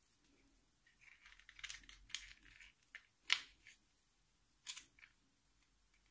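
Hands handling a plastic laptop battery pack and its leads: a handful of light clicks and rustles, the sharpest a little over three seconds in.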